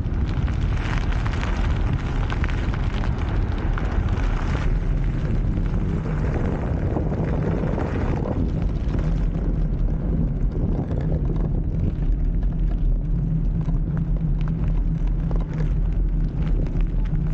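Steady wind rumble buffeting the onboard microphone of a blokart land yacht as it rolls over tarmac, with a brighter hiss in the first few seconds.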